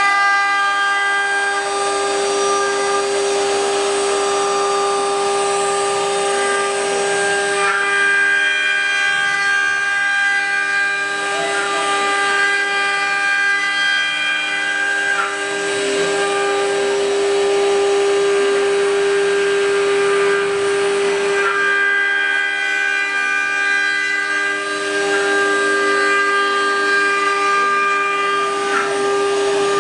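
Multi-spindle 4-axis CNC router carving wooden furniture legs on rotary axes: the spindles whine at a steady high pitch over the hiss of the bits cutting wood, the mix of tones swelling and fading every few seconds.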